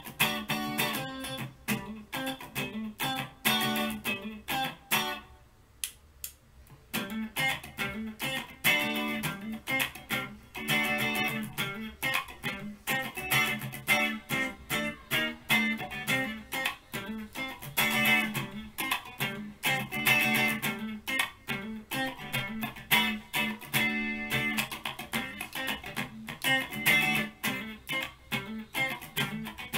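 Electric guitar played solo: quick runs of picked notes and chords, with a break of about two seconds around five seconds in before the playing resumes.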